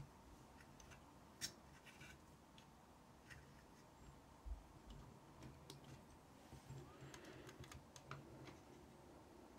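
Near silence with a few faint clicks and taps from fingers handling a cassette deck's mechanism while working a rubber drive belt onto its pulleys; the clearest click comes about a second and a half in.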